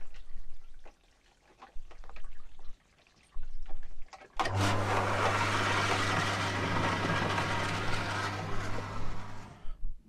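A few knocks and rustles, then an electric water pump starts with a click about four and a half seconds in and runs with a steady low motor hum under rushing water, stopping abruptly just before the end.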